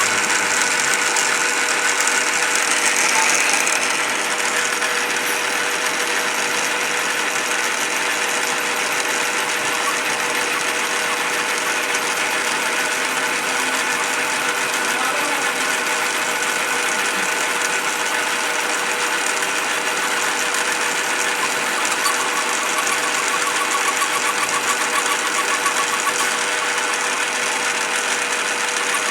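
A Bv20 bench-top mini lathe running steadily while machining a piston: a constant motor-and-gear hum with a steady whine, slightly louder and brighter in the first few seconds.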